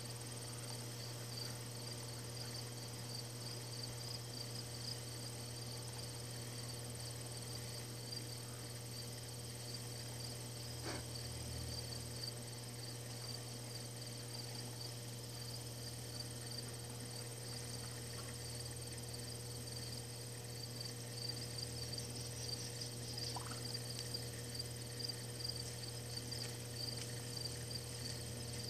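Insects chirping in a steady, evenly repeating high-pitched pulse, with a low steady hum beneath.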